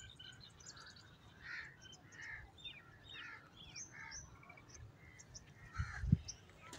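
Faint outdoor birdsong: small birds chirping continually, with a crow cawing several times through the first half. There is a short low thump about six seconds in.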